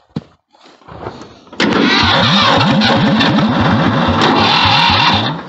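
A short click, then the Ford 2000 tractor's petrol engine cranking on the starter for about four seconds, wanting to start but not catching, before it stops. The engine is hard to start despite fuel reaching the carburettor, which the owner suspects is a carburettor problem.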